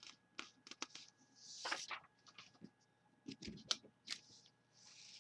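Sheets of paper being handled and slid on a desk, with a scattering of light taps and clicks and two brief swishes of paper, one about a second and a half in and one near the end.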